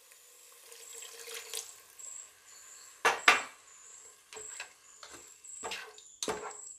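Water poured into a nonstick pot of fried tomato-onion masala, followed a second or so later by a plastic slotted spatula stirring it, several short sharp scrapes against the pan.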